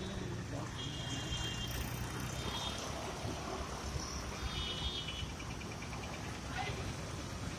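Steady rumble of city road traffic, with motor scooters, motorcycles and autorickshaws passing close by. Short high-pitched chirps recur over it every couple of seconds.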